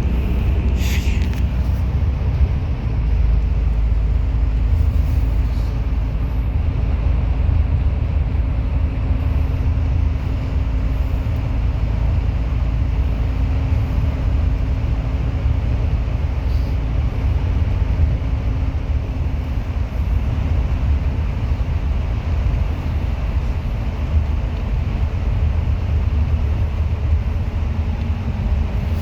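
Bus running steadily: a continuous low engine and road rumble with a faint steady hum.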